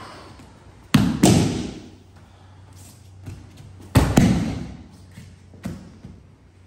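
A body landing on tatami mats in an aikido breakfall, twice: heavy double thuds about a second in and again about four seconds in, each dying away briefly, with a lighter knock near the end.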